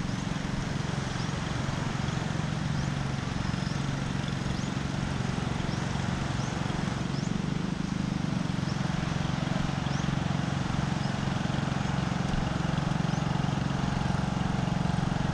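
A steady low motor drone under a wash of outdoor noise, with faint short high chirps every second or so.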